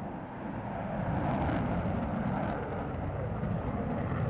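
Military jet's engine noise heard from the ground during an aerobatic display pass, a steady rushing drone that swells slightly about a second in.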